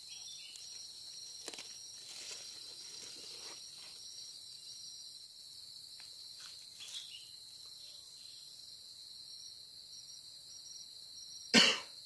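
Steady high-pitched drone of insects in the forest, with a few faint rustles. One short, loud cough comes near the end.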